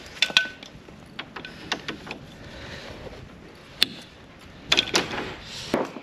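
Scattered sharp clicks and knocks of a PEX crimping tool and brass fittings being handled at a PEX radiant-heat manifold, with a few clustered clacks near the end.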